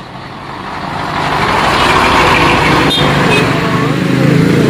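A heavy diesel truck passing close by at low speed, its engine and tyre noise swelling over the first two seconds and staying loud. There is a short sharp click about three seconds in.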